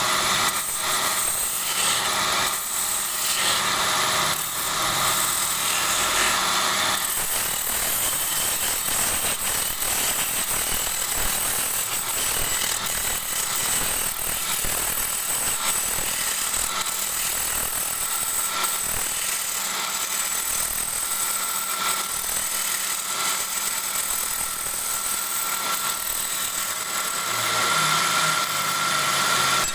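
Wood lathe running, with the hiss of a turning tool cutting the spinning wood; the cutting sound changes about seven seconds in.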